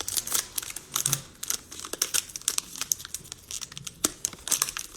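Crinkling and rustling of plastic wrapper or sleeve material handled in the hands, in a rapid run of sharp little crackles.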